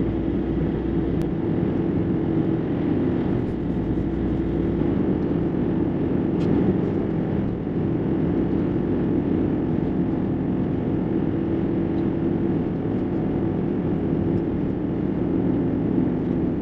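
Steady engine and road noise inside the cab of a Ford-based camper van driving at an even speed: a constant low drone that does not change.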